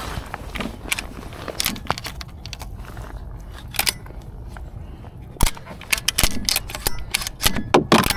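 Irregular sharp clicks and knocks of hard gear being handled, a few spaced apart and then several close together near the end.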